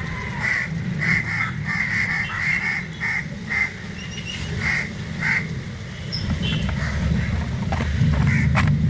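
Young palm squirrels giving short, high chirps at irregular intervals, over a low rumble that grows louder in the second half.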